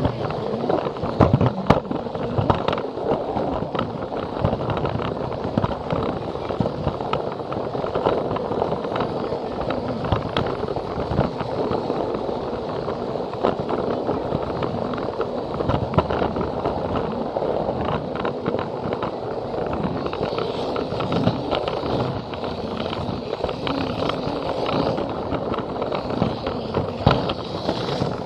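Plarail toy train running along plastic track, heard up close: a steady whirring rattle of its small battery motor, gears and wheels, with frequent irregular clicks as the wheels cross the rail joints.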